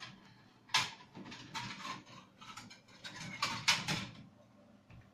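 Kitchenware being moved about in a cupboard: a series of short knocks, clinks and rattles that stops about four seconds in.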